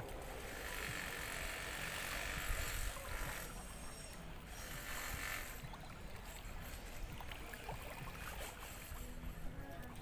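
Shoreline ambience: water washing against the rocky bay shore, swelling twice in the first half.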